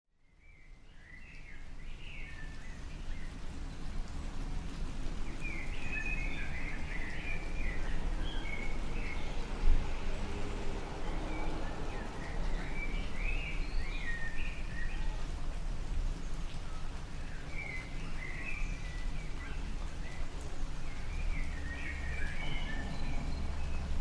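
Light rain falling steadily under a low rumble, fading in over the first couple of seconds. Small birds chirp in short bursts several times, and there is one sharp knock about ten seconds in.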